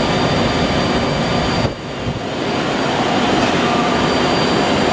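Steady industrial machine noise with a thin high whine over it, from a Red Ring (National Broach) CNC gear shaver running under power. The noise drops sharply about a second and a half in, then builds back to its steady level over the next second.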